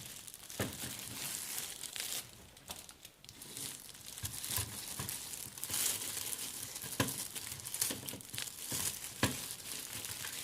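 Plastic packaging crinkling and rustling as it is handled and unwrapped, with a few sharp knocks in between.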